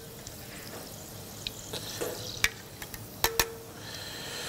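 Carrot julienne frying in hot beef dripping in a pan: a steady sizzling hiss that swells slightly near the end, with a few sharp clicks about halfway through and just after three seconds.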